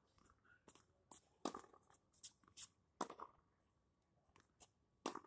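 Faint, sharp knocks of a tennis ball struck by a racket and bouncing on a hard court, with the two clearest about a second and a half apart, among other small clicks.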